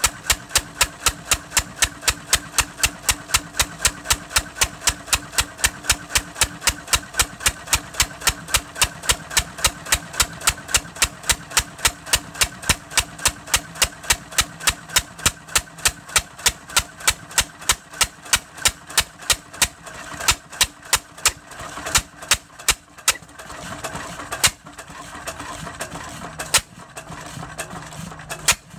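Witte 6 HP throttle-governed, single-cylinder horizontal stationary gas engine running, firing on every cycle with a steady beat of sharp exhaust pops at about four a second. After about 20 seconds the firing thins out to a few widely spaced pops.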